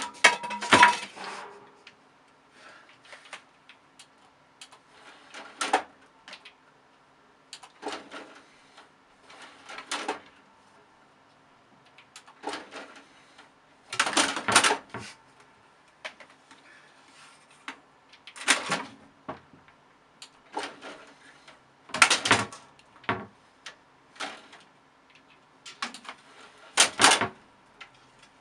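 A cat swatting at a desktop PC's DVD drive tray: bursts of plastic knocks and rattles every few seconds, in irregular clusters. A faint steady hum runs underneath.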